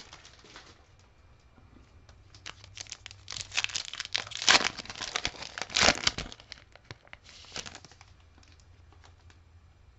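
Plastic-foil wrapper of a Panini Prizm Premier League trading-card pack crinkling and tearing as it is ripped open by hand. A few seconds of crackling, with two louder rips, followed by a short rustle.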